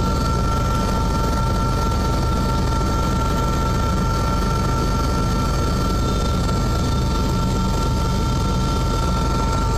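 Helicopter heard from inside the cabin, its rotor and turbine running steadily: a constant low rumble with a steady high-pitched whine over it.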